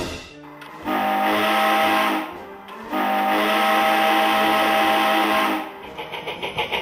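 Steam locomotive chime whistle sounding two long blasts, each a steady chord of several tones with a breathy hiss, starting and stopping cleanly. Faint quick ticking follows near the end.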